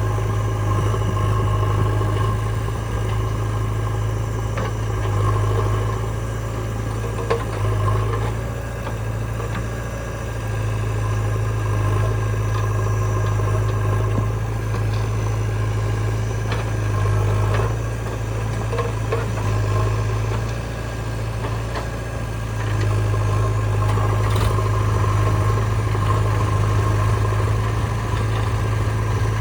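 Diesel engine of a JCB 3DX backhoe loader running steadily, its level swelling and easing every few seconds as it works, with a few faint knocks.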